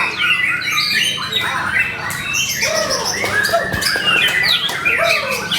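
White-rumped shamas (murai batu) singing vigorously in a dense, unbroken torrent of overlapping whistles, rapid trills, sharp clicks and harsher notes, the full-voiced competition song used to provoke other shamas into singing.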